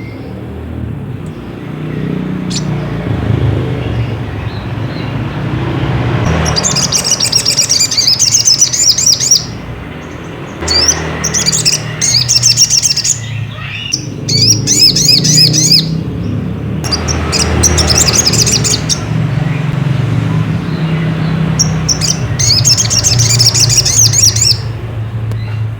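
Little spiderhunter (sogok ontong) giving five bursts of rapid, high chirping calls, each lasting two to three seconds, over a steady low hum.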